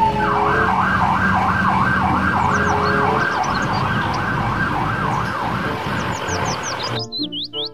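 Police car siren wailing in fast up-and-down sweeps, about two a second, over traffic noise. It cuts off sharply near the end, giving way to children's music with bird chirps.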